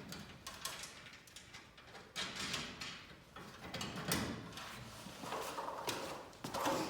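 Irregular knocks and clatter of hand tools and metal hardware being handled and set down, a few sharp knocks spaced a second or two apart.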